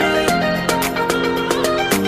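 Background music: instrumental music with plucked strings and a steady beat.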